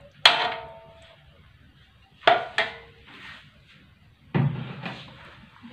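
Metal ladle knocking against the side of a metal wok with short ringing clangs, four times: once just after the start, twice in quick succession a little past two seconds, and once more past four seconds.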